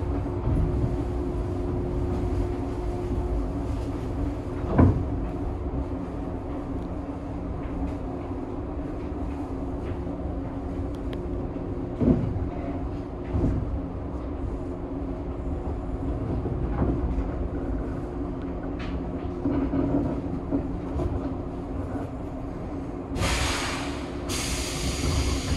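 Inside a JNR 103 series electric train car: steady low rumble and hum with a few knocks. Near the end come two loud hisses of compressed air, typical of the pneumatic door gear working.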